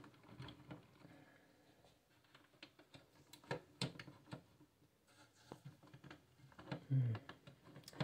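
Scattered light clicks, taps and rustles as hands handle cables and a graphics card inside a metal PC case, while the card is worked into its slot.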